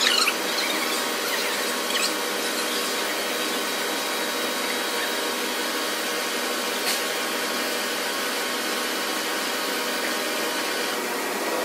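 A steady mechanical hum with a high whine running at an even level, with a few faint clicks.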